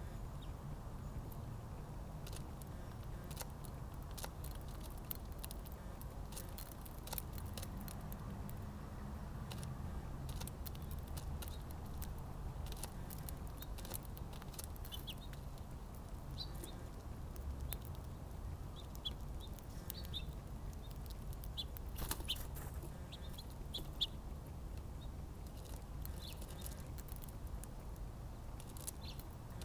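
Small birds at a feeder: short, faint high chirps, mostly in the second half, among scattered sharp clicks and taps, over a steady low rumble.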